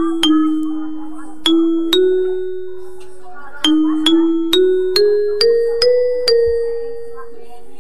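Railway station chime melody: single struck bell-like notes, some close together and some spaced out, climbing step by step through a run of notes to a long held note that fades out near the end.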